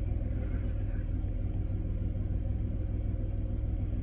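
Car engine idling: a steady low rumble that holds unchanged throughout.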